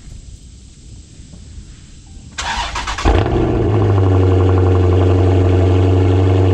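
Cold start of a 6.4-litre (392) Hemi V8: the starter cranks briefly about two and a half seconds in, the engine catches with a loud flare, then settles into a steady, deep idle.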